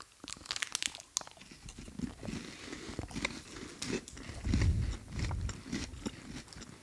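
Biting into and chewing crisp strawberry-flavoured KitKat wafer bars close to the microphone: a run of short, sharp crunches, with a duller low bump a little past the middle.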